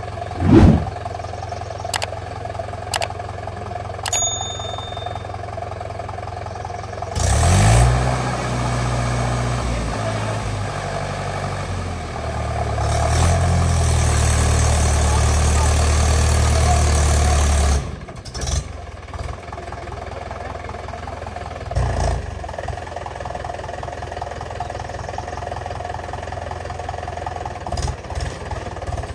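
Diesel tractor engine running, then revving hard under load for about ten seconds in the middle before dropping back to a steady run. There is a loud knock about half a second in and a few sharp clicks.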